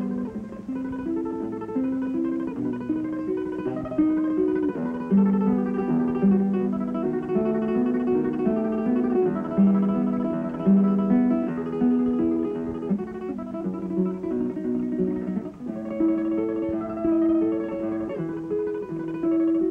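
Title music: a plucked guitar playing a Spanish-style melody as a quick run of single notes.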